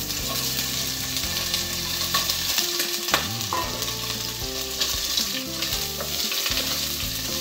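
Sliced linguiça sausage sizzling steadily as it fries in hot olive oil in a stainless steel pot, stirred with a wooden spoon near the end.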